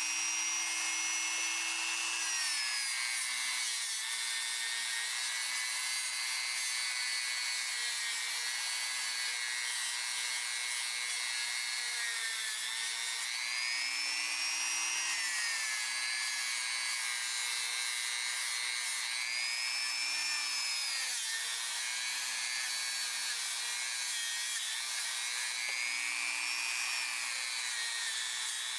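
A power tool spinning a cleaning wheel against the steel of a pipe wrench, with a steady rubbing hiss over the motor's whine. The whine sags in pitch and recovers several times as the wheel is pressed into the work and eased off.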